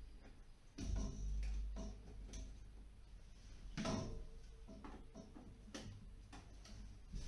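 Scattered clicks, taps and handling knocks from hand work on electrical wiring. A louder bump with a low rumble comes about a second in, and the sharpest knock about four seconds in.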